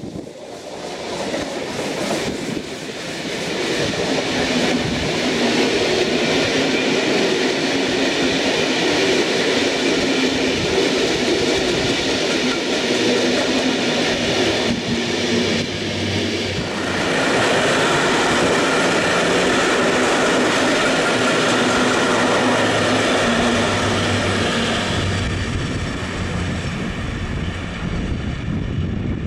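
DR class 44 three-cylinder steam locomotive passing with a special train, followed by its passenger coaches rolling by on the rails. The sound builds over the first few seconds, dips briefly about halfway through, then comes back just as loud and eases off near the end as the coaches go away.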